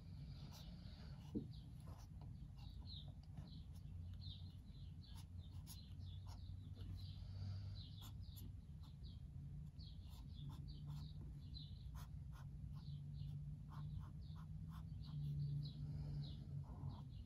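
Felt-tip marker drawing quick short strokes on sketchbook paper, a run of small separate scratches and taps, over a low steady hum.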